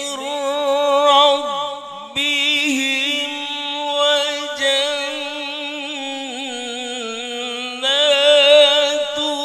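A man reciting Quran verses in the melodic, chanted style into a handheld microphone, holding long ornamented notes with a wavering pitch, broken by a few short pauses.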